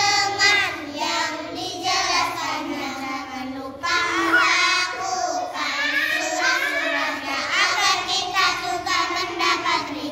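A group of young girls chanting a nadhom together, a sung rhymed verse on the obligatory acts of wudu (ablution), in phrases with short pauses for breath about two and four seconds in.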